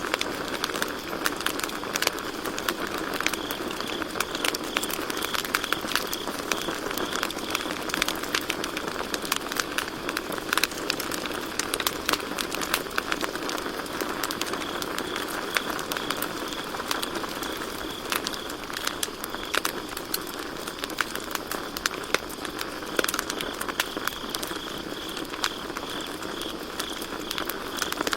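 Campfire crackling and popping with many sharp snaps over a steady low hiss, while crickets trill in the background, their fast pulsing chirps fading in and out.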